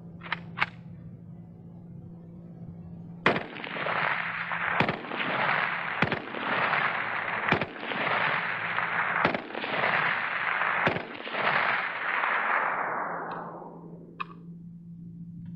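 AK-47 rifle in 7.62x39mm fired semi-automatically: six single shots about a second and a half apart, over a continuous rushing noise that fades away near the end. Two sharp cracks come just after the start.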